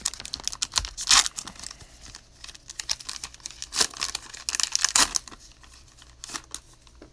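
Cellophane wrapper of a trading-card pack being torn open and crinkled, in a run of irregular crackles with a few sharper rips about a second in and again near four and five seconds.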